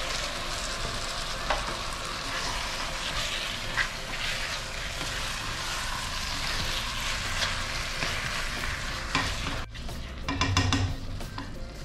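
Mutton pieces sizzling as they fry in a pot of cooked-down tomato and onion base, stirred, with a couple of light knocks of the utensil against the pot. The sizzle drops away suddenly near the end.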